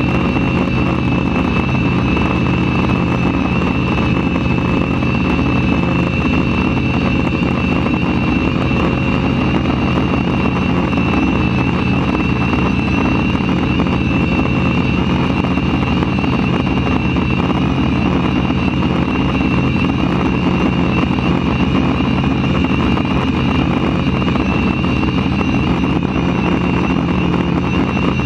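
Quadcopter's electric motors and propellers running steadily in flight, heard from a camera mounted on the craft: a loud, constant whir with a steady high whine over it.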